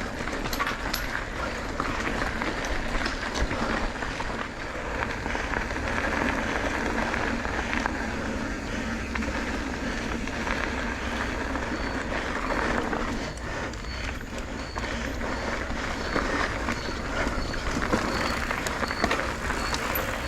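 Steady rush of wind and road noise from riding, with a faint regular ticking from about twelve seconds in.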